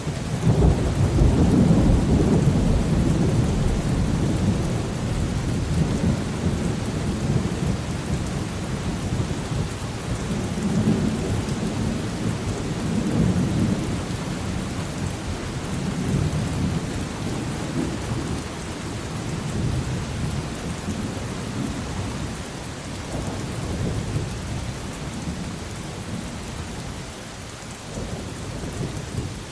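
Steady rain hiss with a long, deep roll of thunder that builds in at the start, is loudest in the first few seconds, then rumbles on and slowly fades.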